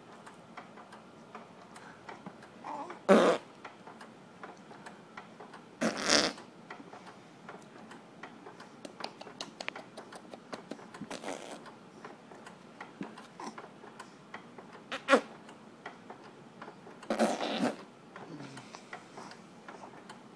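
A baby's short grunts and breathy noises, about five of them a few seconds apart, the ones near 6 and 17 seconds a little longer, with faint clicks between.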